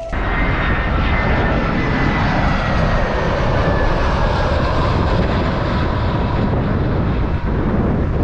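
Loud rushing wind on the microphone of a bicycle-mounted action camera, with a faint high whine slowly falling in pitch.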